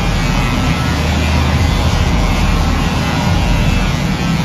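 Loud, steady hockey-arena din with a heavy low rumble: PA music and crowd noise blurred together, with no single event standing out.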